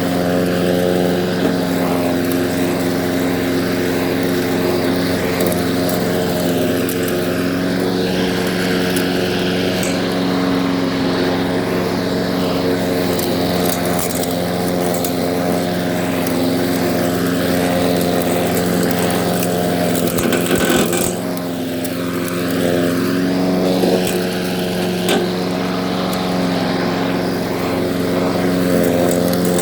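Small lawn mower engine running steadily, with a brief dip in speed and loudness about two-thirds of the way through before it picks back up.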